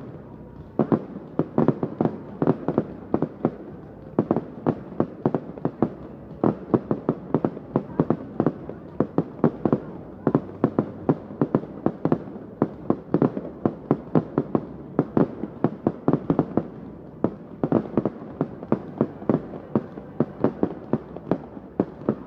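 A fireworks display firing in a dense barrage: a continuous run of sharp bangs and cracks, several a second, as rockets and comets are launched and burst overhead.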